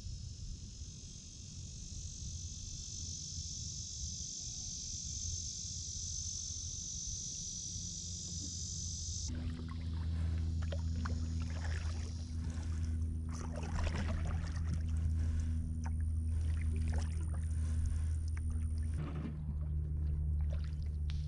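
Canoe being paddled: water swishing and dripping from the paddle strokes, over a steady low rumble at the bow-mounted camera. A steady high hiss in the first part stops abruptly about nine seconds in, after which the splashes come more clearly.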